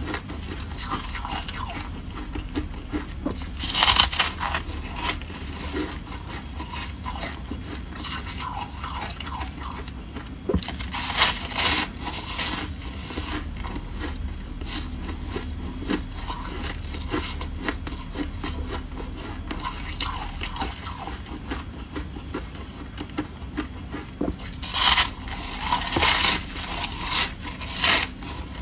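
Close-miked biting and chewing of soft, foamy freezer frost: a few loud crunching bites in clusters, with quieter rustling and chewing between.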